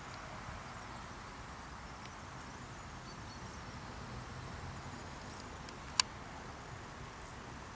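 Faint rural outdoor ambience: a steady even hiss with a low rumble beneath it, and one sharp click about six seconds in.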